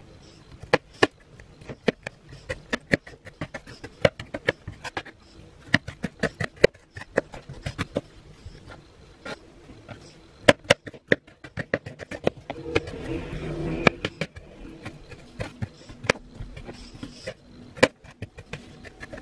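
Chef's knife chopping garlic on a plastic cutting board: quick, irregular knocks of the blade striking the board, several a second.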